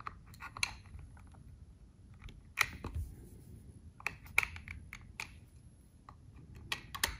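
Irregular light clicks and knocks of USB cable plugs being handled and swapped at a USB power meter.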